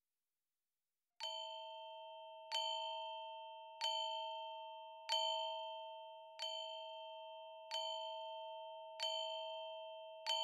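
Music: a bell-like chime struck at an even, slow pulse about every 1.3 seconds, eight times, each strike ringing on and slowly fading into the next. It starts after about a second of silence.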